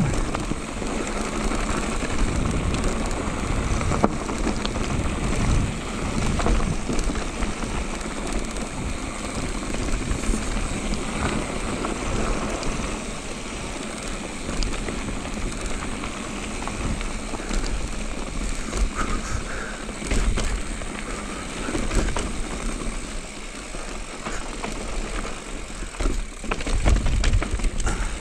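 Electric mountain bike rolling fast down a dry, rocky dirt trail: steady tyre noise on dirt and loose stones with constant crackling rattles from the bike over the bumps, and a low rumble that swells and fades, loudest near the end.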